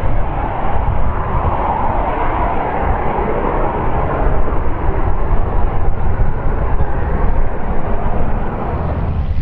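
Loud, steady jet noise from Canadair CT-114 Tutors climbing away after takeoff, each powered by a single General Electric J85 turbojet: a rushing roar over a deep rumble.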